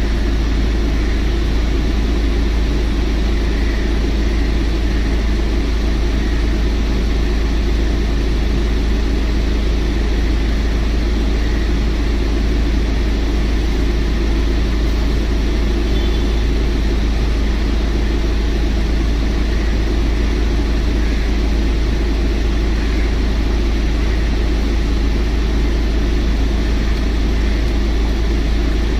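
Mahindra Scorpio S9 diesel engine running steadily at idle during a scanner-commanded regeneration, with a constant low hum.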